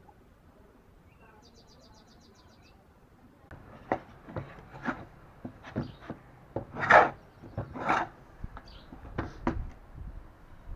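Wooden mallet knocking on a wooden joint: a run of about a dozen irregular, sharp knocks starting about three and a half seconds in, the loudest near the middle. Before the knocks, a faint, rapid, high-pitched chirping.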